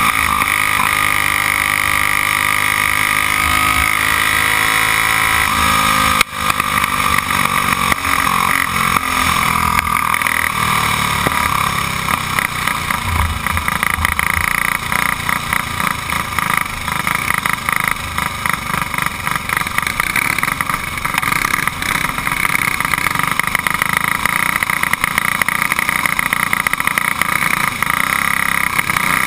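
Racing go-kart's Briggs & Stratton single-cylinder engine running hard under the onboard camera. The pitch climbs over the first few seconds. A sharp knock comes about six seconds in, and after it the engine note wavers up and down as the throttle is worked through the turns.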